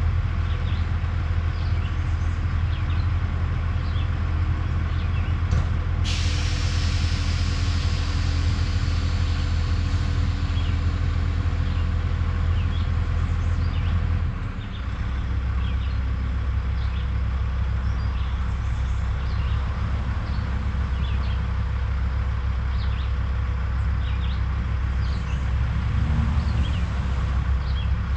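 Heavy diesel truck engine running with a steady low rumble. About six seconds in, a sharp air-brake hiss starts and fades over several seconds, and about halfway through the engine note drops lower.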